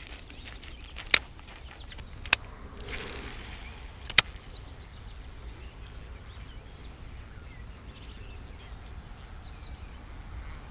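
Quiet outdoor ambience with a low wind rumble, three sharp clicks spread over the first four seconds and, in the second half, faint high chirps from small birds.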